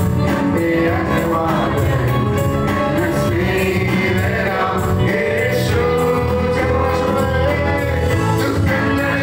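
A man singing a Malayalam Christian worship song into a handheld microphone, over keyboard backing with a steady beat.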